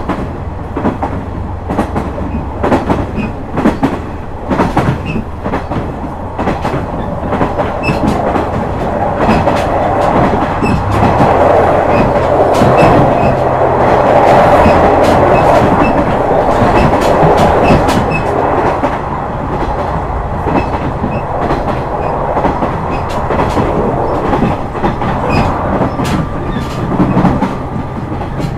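Onboard running sound of a JR West KiHa 126 series diesel railcar: the diesel engine drones steadily while the wheels click over rail joints. About eleven seconds in, the engine note steps up, and a louder rushing noise swells for several seconds before easing off.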